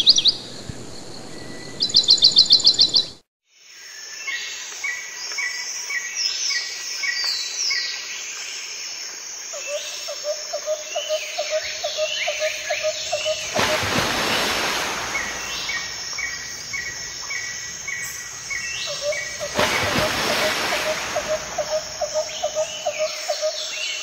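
Birds chirping and calling over and over, with a steady high insect drone beneath them. Two brief rushes of noise come about six seconds apart, around the middle.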